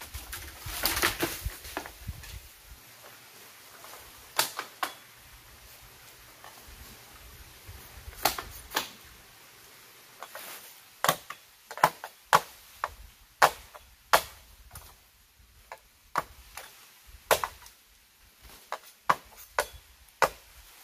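Machete blows chopping into bamboo: a string of sharp, irregular knocks, coming about one a second in the second half, with a dense crackle of cracking bamboo about a second in.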